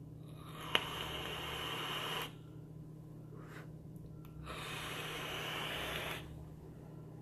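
Two long breathy hisses, each about two seconds: a drag through a vape's parallel-coil rebuildable atomizer fired at 80 watts, and a big exhale of vapour. There is a small click near the start of the first.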